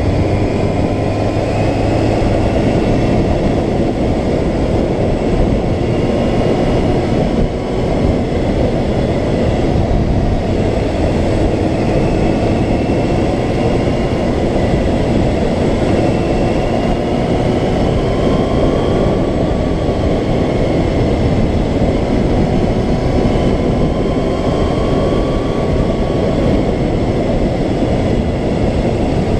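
Steady, heavy wind rush on the camera of a moving motorcycle, with the engine note of a Yamaha FZR600R inline-four faintly underneath, its whine rising and falling gently with the throttle.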